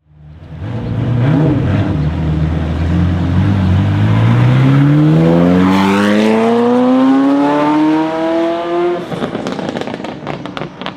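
A Ferrari supercar engine accelerating hard, its pitch climbing steadily for several seconds in one long pull. About nine seconds in the driver lifts off, the engine note drops away, and the exhaust fires a run of sharp crackles and pops.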